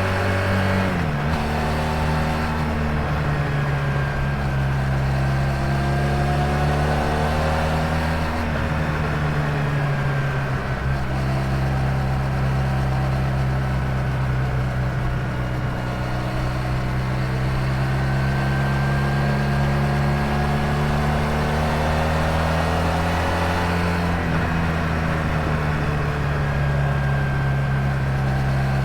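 1986 Honda VF1000R's V4 engine running under way on the road, engine note climbing slowly and then dropping sharply at gear changes about a second in, around eight seconds in, and again a few seconds before the end.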